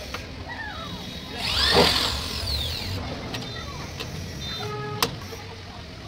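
Electric drill with a keyed chuck briefly triggered, its whine rising and then falling as the motor spins up and runs down, about two seconds in. A sharp click follows near the end.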